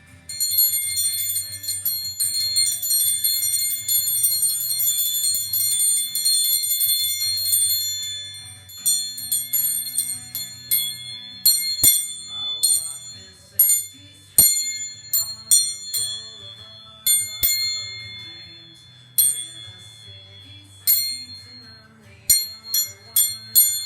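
A bell rung by hand to make noise: rapid continuous ringing for about eight seconds, then single strikes and short runs of strikes, each ringing on after it is hit.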